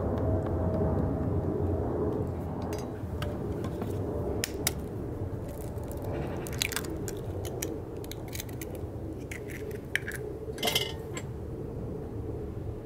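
A spoon scraping and stirring thick tomato sauce in a terracotta dish, and eggs tapped and cracked open over it, giving scattered sharp clicks and crunches, the strongest near the end, over a low steady rumble.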